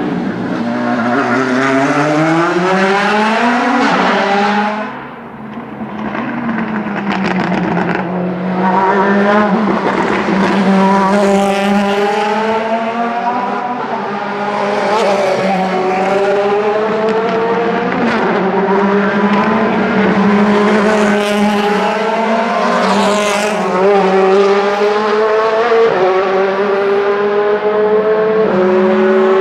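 Several DTM race cars' V8 engines running hard past the spectator, pitch climbing and then stepping down sharply at each upshift, with several engines overlapping. The sound dips briefly about five seconds in before the next cars arrive.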